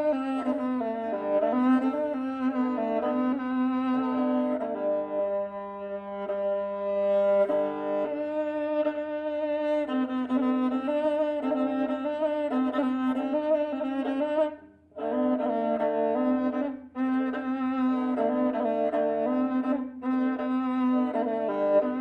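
Kazakh kobyz (qyl-kobyz), a bowed instrument with two horsehair strings, played solo: a sustained low drone under a wavering, sliding melody, with a brief break about two-thirds of the way through.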